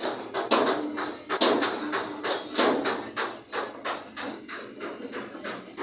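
A rapid, irregular run of sharp knocks, several a second.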